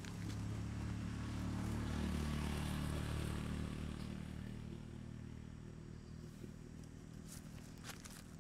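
A motor vehicle's engine running as it passes, growing louder about two seconds in and then fading away. A few faint clicks near the end.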